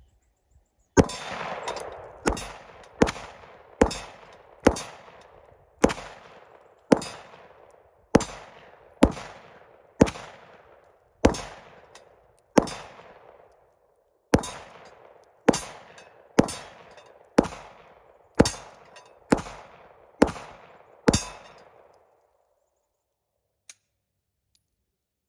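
Glock 17 9mm pistol fired about twenty times at a steady pace, each shot followed by the clang of a steel target ringing out. The string stops suddenly about 21 seconds in, which the shooter puts down to the Korean aftermarket magazine jamming. One faint click follows a couple of seconds later.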